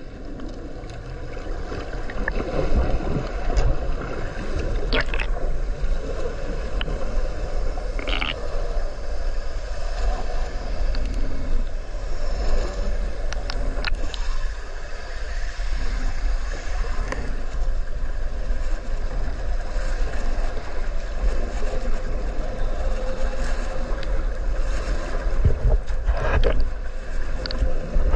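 Underwater sound picked up by a submerged camera: a steady low rumble and wash of water noise, with a few short sharp clicks scattered through it.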